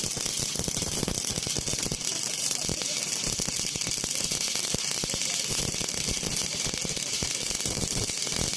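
Electric arc welding: a steady, dense crackle and hiss of the arc as metal is welded.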